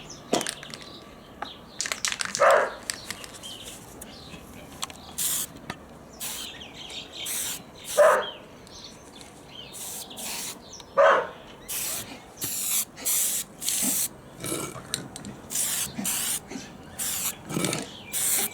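Aerosol spray paint can hissing in over a dozen short squirts, with a dog barking sharply three times, about two and a half, eight and eleven seconds in.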